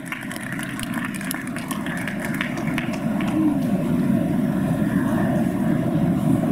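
Audience applauding, growing a little louder.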